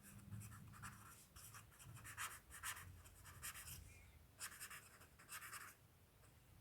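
Faint scratching of a pen writing or drawing, in short irregular strokes.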